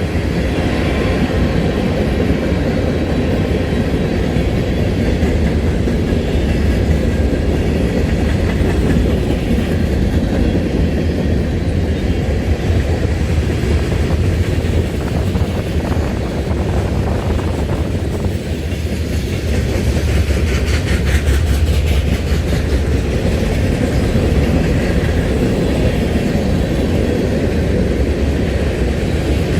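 Train rolling past on the rails: a steady rumble with the clatter of its cars' wheels.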